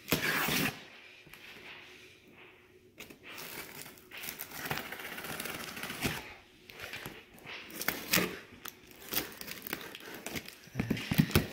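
Packing tape on a cardboard shipping box being slit with a box cutter and torn open: a loud rip right at the start, then a longer stretch of scraping and tearing a few seconds in, with scattered clicks and knocks of cardboard.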